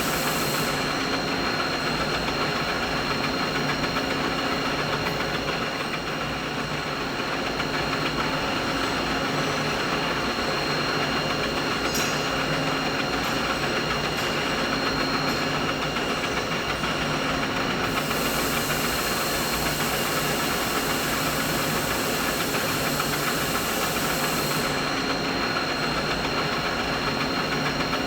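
Continuous machinery noise: a steady mechanical hum with several constant tones, including a thin high whine, over an even rushing noise. A high hiss on top drops away about a second in, comes back for several seconds past the middle, then drops away again near the end.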